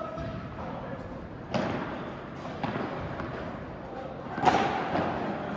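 Padel ball impacts during a rally: three sharp racket hits or bounces, about a second and a half in, around two and a half seconds and near the end, the last one the loudest, each with a short echo.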